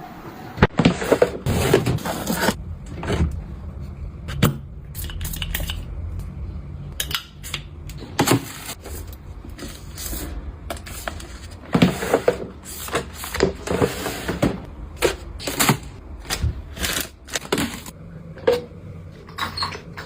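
Irregular clicks, taps and knocks of containers and packaging being handled and set down during restocking, some close and sharp.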